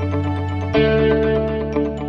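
Background music: a steady low bass chord under a quick repeating pattern of plucked notes, changing chord about three-quarters of a second in.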